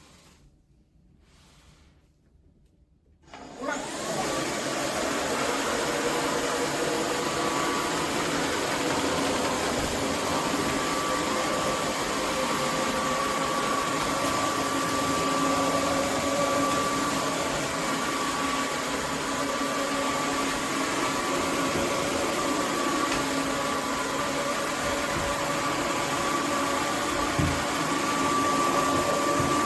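Roborock F25 RT cordless wet-dry vacuum cleaner switching on about three and a half seconds in, then running steadily with a constant whine.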